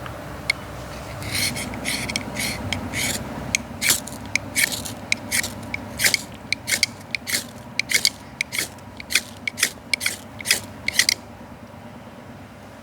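A knife blade scraped again and again down a ferrocerium fire-starter rod to throw sparks onto tinder, in short, sharp scrapes about two a second; the scraping stops about eleven seconds in.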